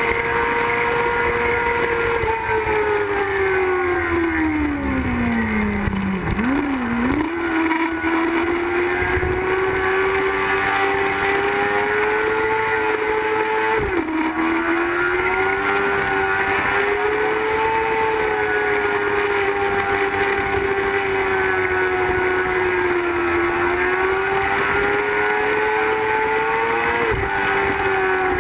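Sport bike engine at high revs, heard onboard: the revs fall steadily for a few seconds as the rider slows, with a quick blip at the lowest point, then rise and hold under throttle. The pitch drops suddenly about halfway through and again near the end, the sound of upshifts.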